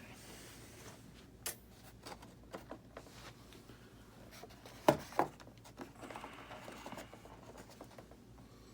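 Scattered small clicks and taps of parts and wiring being handled at a workbench, with two sharper knocks about five seconds in.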